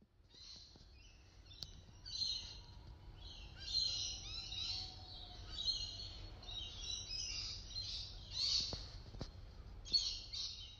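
Many small birds chirping and chattering at once, their calls overlapping, busiest about four and eight seconds in, over a low rumble.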